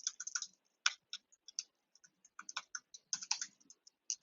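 Typing on a computer keyboard: irregular keystrokes in short flurries with brief pauses between them.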